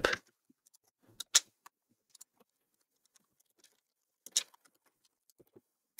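A few sparse, separate clicks of keys on a computer keyboard. The two clearest come about a second and a half in and about four and a half seconds in.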